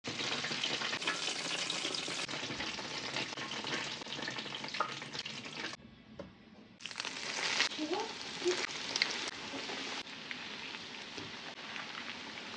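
Breadcrumb-coated stuffed bread rolls deep-frying in hot oil: a steady sizzle with crackling. It almost drops out for about a second halfway through, then resumes.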